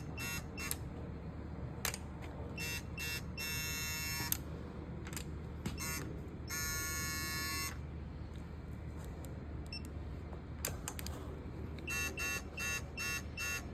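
Electronic beeping of a digital torque wrench as the cylinder-head stud nuts are tightened. It gives runs of short beeps and two longer steady tones about four and seven seconds in, which mark the wrench reaching its set torque.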